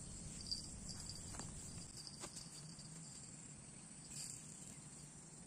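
Faint steady insect chirping, with a few soft clicks and a brief swish about four seconds in as a fishing rod is cast.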